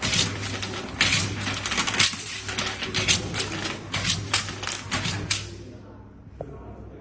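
Automatic cross-cutting machine feeding and cutting aluminium foil into sheets. A steady motor hum runs under rapid clicking and crinkling, with a sharper cutting stroke about once a second. The sound dies down about five and a half seconds in.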